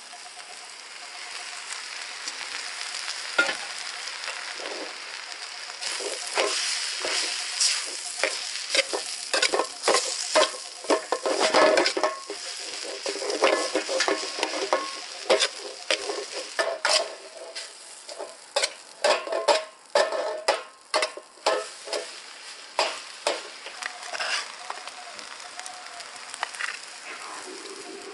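Chopped medu vada pieces and vegetables sizzling in a steel wok, with a metal ladle stirring and scraping against the pan in quick, irregular clanks from about six seconds in.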